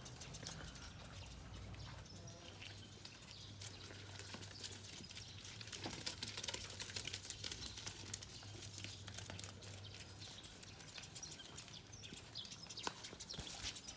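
Rain pattering: a dense, irregular ticking of small drops, busiest in the middle, over a faint steady low hum.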